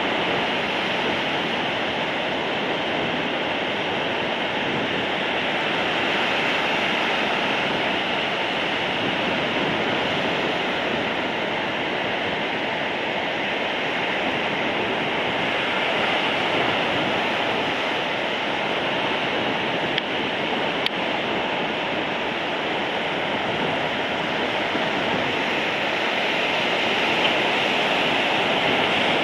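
Sea surf breaking in a steady, continuous rush of whitewater.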